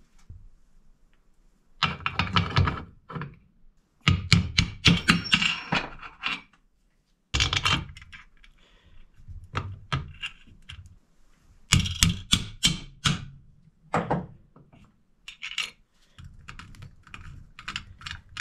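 Small metal hardware and hand tools clicking and clinking in irregular bursts of rapid clicks, with a few knocks in between, as bolts and nuts are fitted during assembly.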